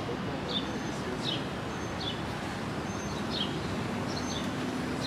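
A bird calling over and over, short downward chirps about every three-quarters of a second, over a steady wash of outdoor background noise. A low steady hum comes in near the end.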